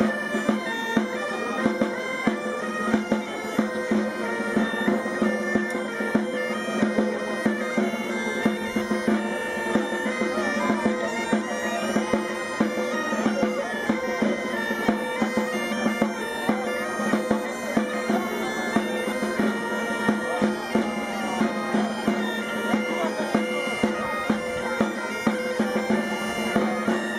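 Asturian gaitas (bagpipes) of a pipe band playing a tune over a steady drone, with a snare drum beating a regular rhythm along with them.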